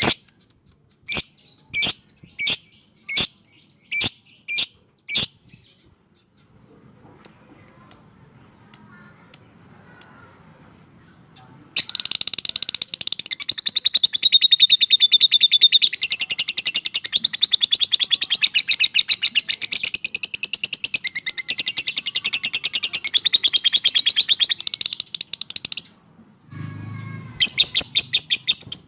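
Lovebird calling: a run of sharp, high single chirps about half a second apart, then a long, fast, high chattering trill, the 'ngekek panjang' long chatter, lasting about fourteen seconds, and a short burst of the same trill near the end.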